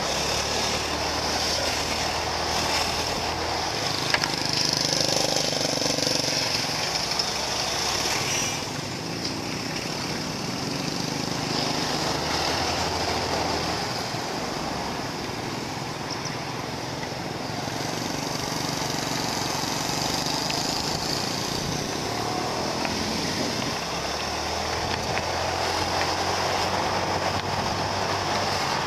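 Motorbike engine running at road speed, its note shifting up and down as the bike speeds up and slows in traffic, under steady wind and road noise.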